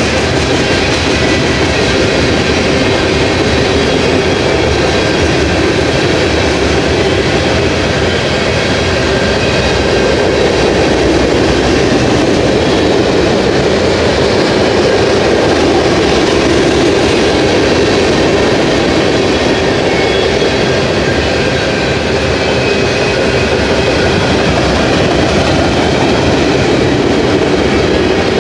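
Freight cars of a passing manifest train rolling by at speed: a steady, loud rumble of steel wheels on the rails with clickety-clack over the rail joints, and faint high ringing tones from the wheels.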